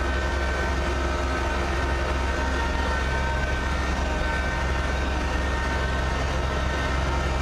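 Kubota BX2680 compact tractor's three-cylinder diesel engine running steadily, heard from inside its cab, with the cab heater fan blowing on high. A constant low drone with a thin steady whine above it.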